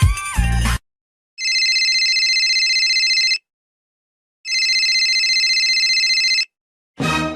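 Telephone ringing twice, each ring about two seconds long with a pause of about a second between.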